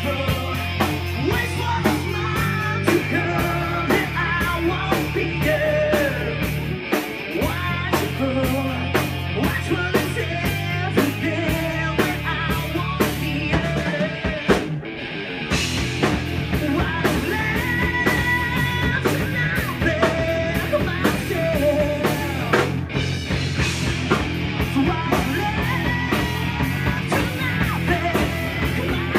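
Rock band playing live: a drum kit keeps a steady beat under a bass line and a singing voice, with a short break in the bass about halfway through.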